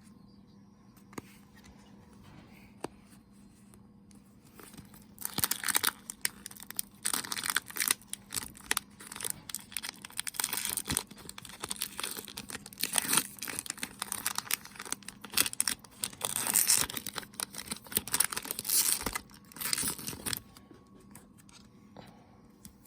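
Crinkly Pokémon booster-pack wrapper being torn open and crumpled by hand: dense crackling and tearing that starts about five seconds in and stops a couple of seconds before the end.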